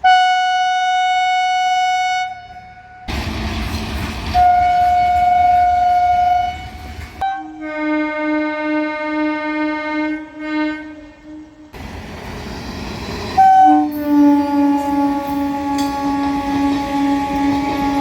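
Indian Railways electric train horns sounding in a run of cut-together clips. It opens with a short high blast, then a rumbling passing train sounds another high blast. Two longer, lower blasts with a wavering, pulsing tone follow, the last sliding slightly lower in pitch, with train running noise between them.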